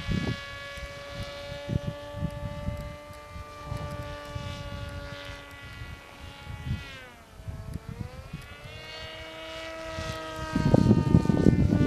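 Electric RC model plane's motor and propeller whining steadily in flight; the pitch dips about seven seconds in and climbs back. Gusts of wind rumble on the microphone, loudest near the end.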